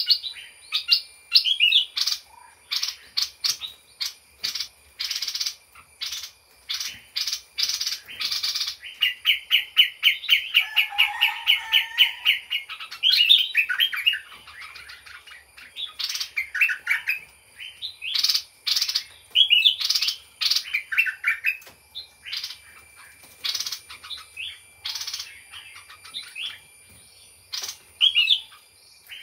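Caged songbird singing a busy, varied run of chirps, sharp chips and whistled phrases, with a long rapid trill about nine seconds in.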